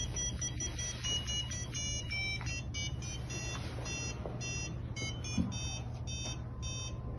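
Makeblock mBot robot's onboard buzzer beeping out a Christmas tune, one short electronic note after another at changing pitches. The robot switches to a different song once its ultrasonic sensor detects an obstacle at the end of the line-following track.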